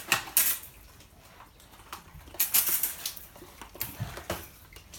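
Water guns squirting in several short hissing bursts: one just after the start, a longer one about halfway through, and two brief ones near the end.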